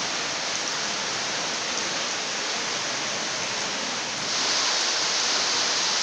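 Water spilling down a rock face and dripping into a pool inside a grotto: a steady splashing hiss. It grows louder and brighter about four seconds in.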